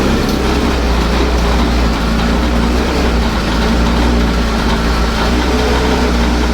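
Suzuki Access 125 scooter's single-cylinder four-stroke engine running and being given throttle, jerking and bogging down instead of picking up cleanly. This is a misfire that the mechanic traces to the air-intake hose having been fitted without its inner bush, letting in too much air.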